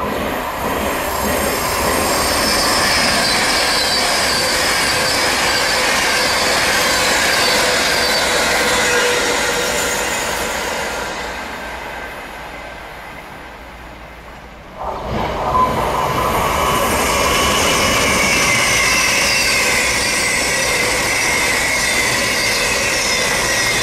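An Avanti West Coast Class 390 Pendolino electric train passing through a station at speed, its rolling noise and whine falling slowly in pitch and fading away. About fifteen seconds in, after an abrupt change, a pair of Class 221 Super Voyager diesel-electric units runs past close by, loud, with a slowly falling whine.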